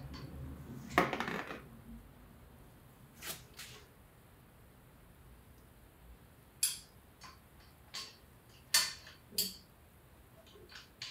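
Light metal clinks and clicks of hand tools and loose wheel bolts being handled. One louder clank comes about a second in, then scattered single clicks and taps.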